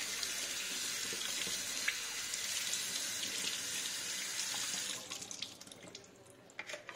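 Kitchen tap running onto a whole raw chicken as it is rinsed by hand in a stainless steel sink, a steady splashing rush of water. The flow stops about five seconds in, leaving a few small drips and wet handling sounds.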